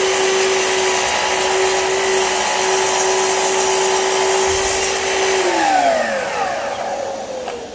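Festool Kapex KS 120 sliding mitre saw running at full speed with a steady whine as the blade is lowered through a clamped wooden board. About five and a half seconds in the motor is switched off and the whine falls away in pitch as the blade winds down.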